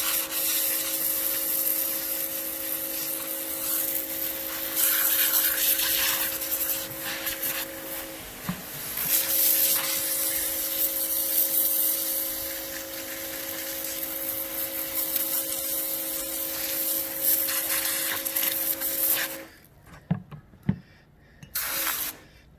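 Small electric pressure washer running with a steady motor hum and hissing water spray as brake caliper parts are rinsed, pausing briefly about eight seconds in and stopping about three seconds before the end. A few short knocks follow.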